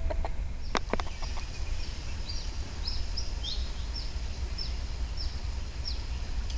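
A small bird repeating short, high, downward-sliding chirps, about two a second, over a steady low rumble. Two sharp clicks come about a second in.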